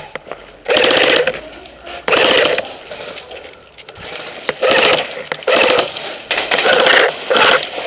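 Airsoft guns firing rapid full-auto bursts, about six short bursts of fast clicking, each under a second long.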